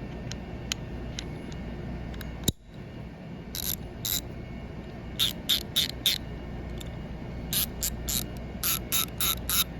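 Koken 3725Z 3/8-inch-drive ratchet being swung back and forth, its pawl clicking in about a dozen short bursts that start about three and a half seconds in. A single sharp click comes just before.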